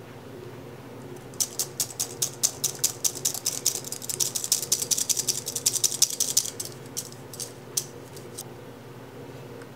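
Stainless-steel mesh sieve tapped and shaken to sift cake flour and baking powder. A rapid run of sharp ticks lasts about five seconds, then thins to a few scattered taps.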